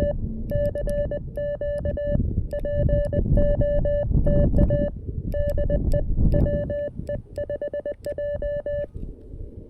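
Morse code (CW) tone from a CFT-1 QRP transceiver, a single steady pitch keyed on and off in dashes and dots over a hiss of band noise; a run of quick dots comes near the end and the keying stops shortly before the end.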